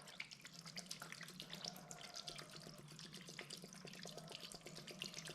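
Faint sloshing and lapping of alcohol in a pan as graphics card circuit boards are swished around in it, a stream of small irregular splashes and ticks.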